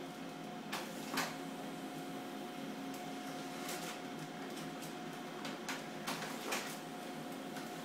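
Ultrasound scanner console: about half a dozen sharp clicks of its controls as a head-circumference measurement is set and the image saved. The loudest come about a second in, with a cluster in the second half. Under them runs the machine's steady hum with a faint constant whine.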